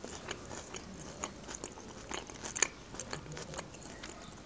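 Close-miked chewing of a mouthful of Caesar salad: irregular soft crunches and wet clicks of the mouth, a dozen or so scattered over the few seconds.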